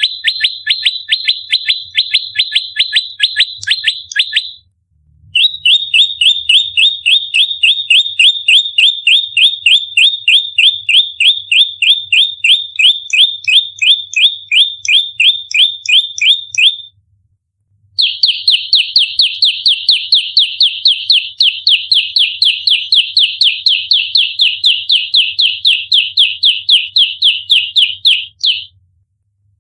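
Prenjak lumut songbird giving its rapid-fire fighting call: sharp chirps repeated several times a second in three long bouts, with brief pauses between them. This is the agitated territorial calling used as a lure and training (masteran) recording.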